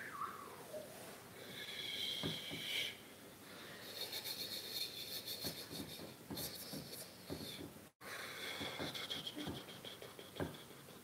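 A man's high, wheezing, whistle-like breath sounds, with a whistle falling in pitch during the first second and scattered short clicks.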